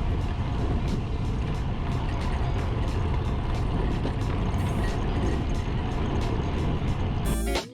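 Strong crosswind rumbling and buffeting on the microphone in gusts. Electric guitar music cuts in near the end.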